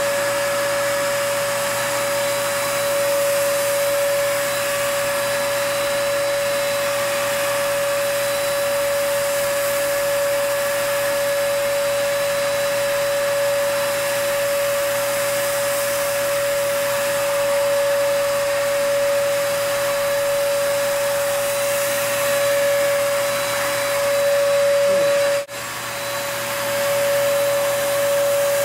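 Turbine paint sprayer running steadily, a constant motor whine with air and spray hiss, as Plasti Dip is sprayed onto a car hood. The sound drops out for a moment near the end, then resumes.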